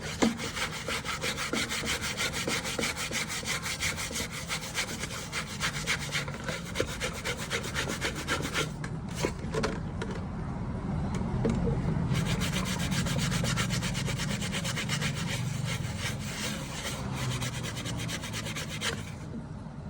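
Rapid back-and-forth rubbing strokes of a cloth scrubbing a laptop screen, with a brief pause about nine seconds in.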